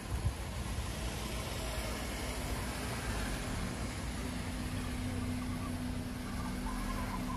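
Car engines running at low speed on a street, a steady low engine hum over a background rumble.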